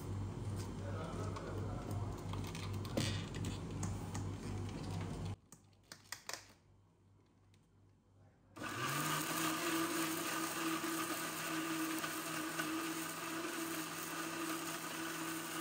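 Electric mixer grinder (mixie) starting about nine seconds in: its motor rises in pitch as it spins up, then runs steadily, grinding spices in the steel jar. Before that there is a steady hum with handling noise, then a few seconds of near quiet with a few clicks as the jar and lid are set.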